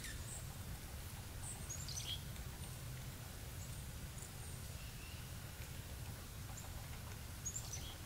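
Steady low outdoor rumble with a few short, high bird chirps: a cluster of quick falling notes about two seconds in and another chirp near the end.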